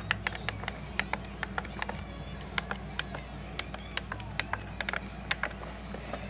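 Plastic buttons on an Eton Zoneguard weather alert radio being pressed one after another, giving a quick, irregular run of small clicks, about four a second, over a steady low hum.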